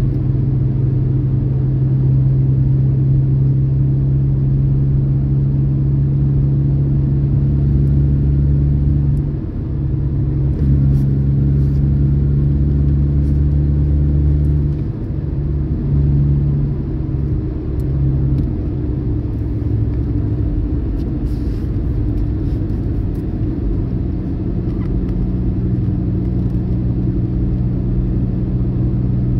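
Car engine running under throttle, heard from inside the cabin as the accelerator is worked. The steady engine note drops and changes pitch a few times about a third to two thirds of the way through, then settles again.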